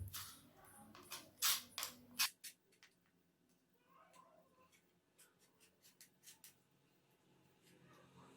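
Faint handling sounds while white glue is spread on a plywood board: a few short clicks and scrapes in the first two seconds or so, then only scattered faint ticks.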